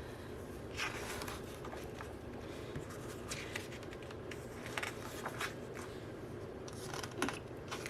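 Paper being handled: scattered soft rustles and light scrapes as album booklets and inserts are picked up and leafed through.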